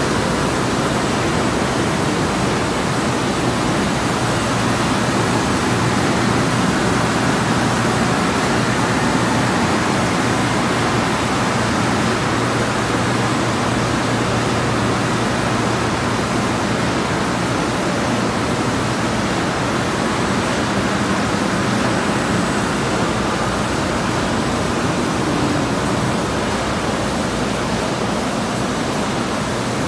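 MPS EF510 eight-colour flexographic label press running: a steady, loud, even rushing noise with a low hum underneath.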